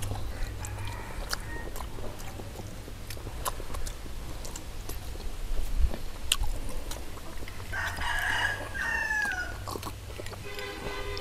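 A rooster crows once, about eight seconds in, the call ending on a falling pitch, over scattered sharp clicks and a steady low hum.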